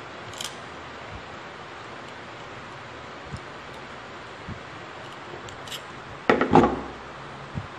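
Steel pliers clicking and scraping against solid copper wire as the wire is twisted into a joint, a few light ticks and then a brief cluster of louder clatters about six and a half seconds in, over a steady hiss.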